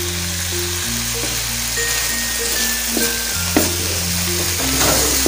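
Chopped vegetables sizzling in a hot frying pan as they are stirred with a wooden spatula, with a few scrapes of the spatula against the pan. Background music with steady bass notes plays underneath.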